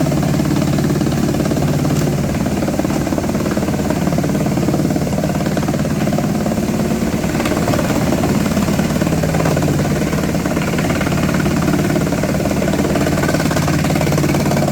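GX216 drum wood chipper running with a steady, loud low drone and some rattle, without pauses or changes in pace.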